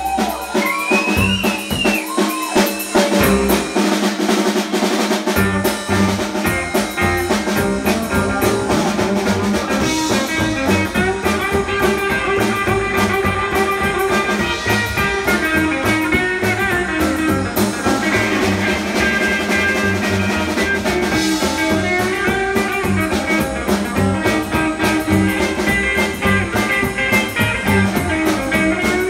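Live rockabilly band playing: electric guitar, upright bass and drum kit with rimshots. The bottom end drops out for the first few seconds, and the full band comes back in about five seconds in and plays on steadily.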